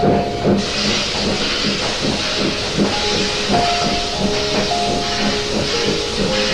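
Steam locomotive sound effect for a JNR C62: a steady rhythm of exhaust chuffs under a loud steam hiss that swells up under a second in.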